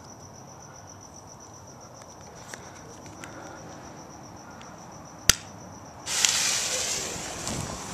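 Crickets chirring steadily, then a sharp click a little after five seconds in. About a second later a Black Cat popcorn rocket's motor ignites and launches with a loud hiss.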